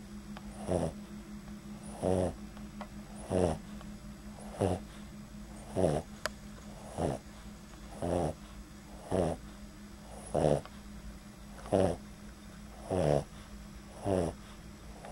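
Boston Terrier, a short-nosed breed, snoring lightly in its sleep: a regular snore on each breath, about one every second and a bit.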